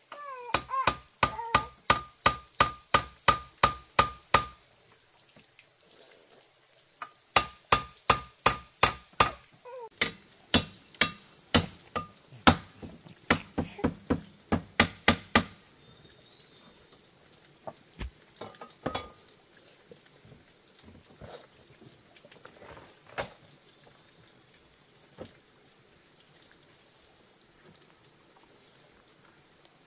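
Hammer blows coming quickly in three runs of about three strikes a second, each with a short metallic ring. Near the end come a few scattered light knocks.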